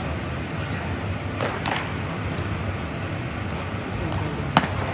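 Steady hum of a large indoor sports hall with faint distant voices, and one sharp smack about four and a half seconds in.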